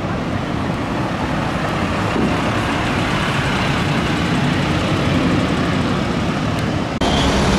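Fire department paramedic ambulance driving past close by: steady engine and road noise, growing louder as it passes, with no siren. The sound cuts off suddenly near the end into a different, steadier noise.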